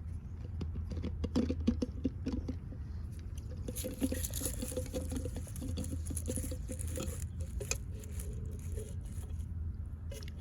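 Handling noise: irregular small clicks and rustles of plastic parts being taken apart and turned over in the hands, over a steady low hum.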